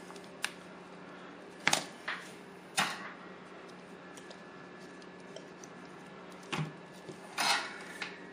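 Soldering iron and copper solder wick lifting excess solder off a chip's pins: a few short crackles and clicks spread through, over a low steady hum.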